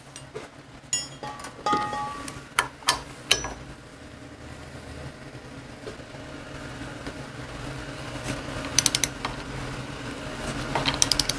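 Metal tools clinking against a steel bearing puller and wheel hub, a few sharp clicks with short ringing. Near the end come two quick runs of ratchet clicks as a 3/8-inch-drive ratchet draws a sealed wheel bearing into a Harley-Davidson wheel hub.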